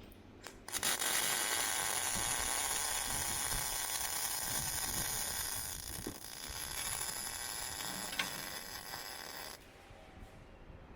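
MIG welding arc on 3 mm plate, crackling steadily like frying for about nine seconds, then cutting off suddenly as the trigger is released. A few light clicks come just before the arc starts.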